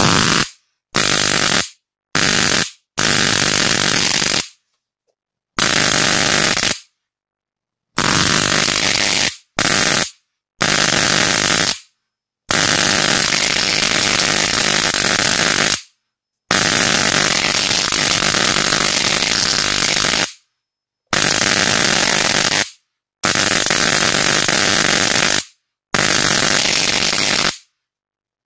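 Car ignition coil driven from mains through a phase-angle controller, its high-voltage spark arcing across an air gap of about 3 cm between two wire ends with a loud, harsh buzzing crackle. It is switched on and off in about a dozen bursts lasting from under a second to several seconds, each starting and stopping abruptly.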